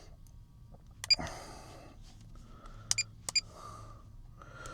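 Three short, high electronic beeps: one about a second in and two close together near three seconds, with soft breathing between them.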